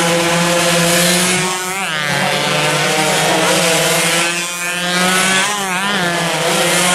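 Several two-stroke 116cc underbone race motorcycles running at high revs through a corner, their engine notes dropping and rising as they brake and accelerate past. Two bikes pass close, about a second and a half in and again around five seconds in.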